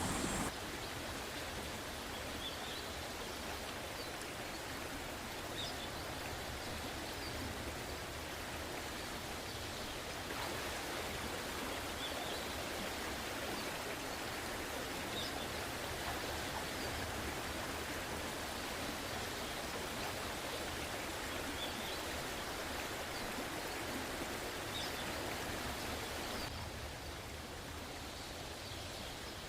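Steady rushing of river water, with faint short high chirps now and then.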